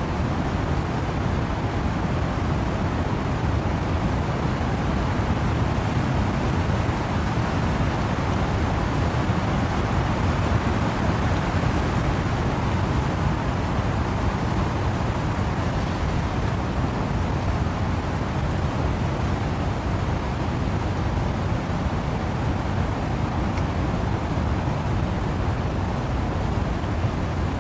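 Wind blowing through trees with rain falling: a continuous rushing noise, heavy in the low end, swelling slightly about midway.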